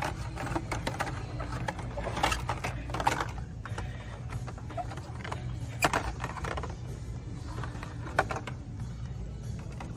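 Hot Wheels blister-pack cards clicking and rustling as they are flipped through and pushed along metal display pegs, irregular plastic clacks with a few louder knocks, over a steady low hum.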